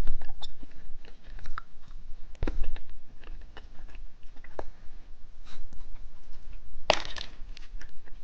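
Plastic candy packaging being handled: scattered small crinkles, clicks and taps, with one louder crinkle about seven seconds in.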